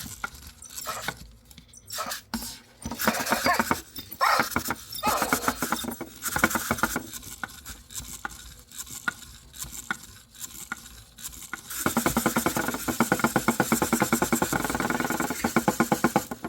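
EMO desktop pet robot stuck in its 'hiccup' error, repeating the same movement over and over: irregular buzzy bursts of small-motor and electronic sound, then a long run of quick, even pulses, about four or five a second, from about twelve seconds in.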